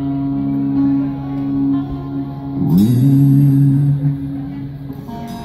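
Live rock band playing amplified music: long held low notes that slide up into a new held note about halfway through and again at the very end, with a cymbal crash at the first slide.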